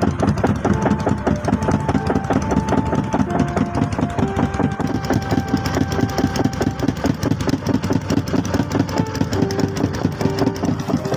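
Small single-cylinder petrol engine of a long-tail boat motor running steadily under way, a rapid even clatter.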